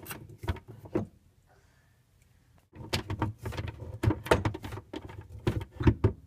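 Plastic filter cartridges of a GE Profile reverse osmosis system being twisted out of their head by hand: plastic clicks, knocks and scraping. A quiet gap of about two seconds comes first, then a dense run of clicks and rubbing that stops suddenly near the end.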